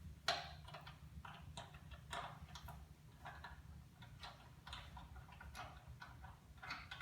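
Faint, irregular light clicks, about one or two a second, as a hand tap in its tap wrench is turned back out of a freshly cut 5/16-inch fine-thread hole in thin sheet steel.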